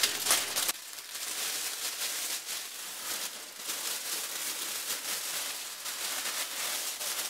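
Thin plastic bag crinkling and rustling as hands gather and twist its top closed. It is louder for the first second.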